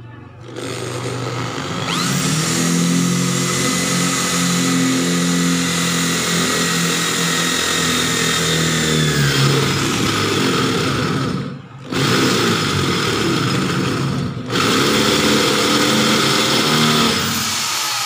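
Electric hand drill boring through a steel square tube, with a bit resharpened on a cheap drill bit sharpener. The motor starts, runs steadily with a whine over the grinding of the bit in the metal, stops briefly twice about two-thirds through, and winds down with a falling pitch at the end.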